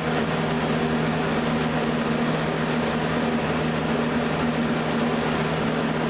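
Westinghouse AW12-1 box fan with its Marco motor running on high: a steady motor hum under the even rush of air from the blade.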